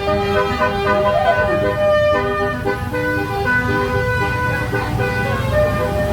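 Bus basuri (telolet) horn playing a melody in held notes that step from pitch to pitch, over the low rumble of the bus engine.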